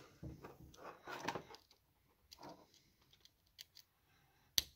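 Quiet small clicks and rustling from hands handling a tiny drone flight controller board and its attached wires, with one sharper click near the end.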